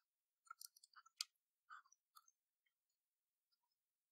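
Faint small clicks and rustles of fingers pulling apart the two conductors of a thin stranded wire at an opened plastic mouse casing, with one sharper click about a second in. The handling sounds stop after about two seconds.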